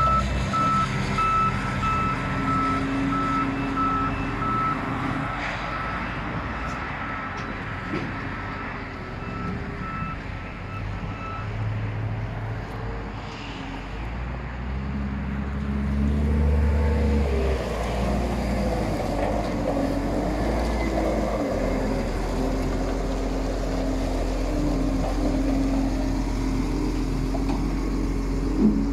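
Case 721F wheel loader's 6.7-litre turbocharged six-cylinder diesel running while its backup alarm beeps steadily, the beeping stopping about a third of the way through. The engine then rises in revs as the loader drives off, with a single knock near the end.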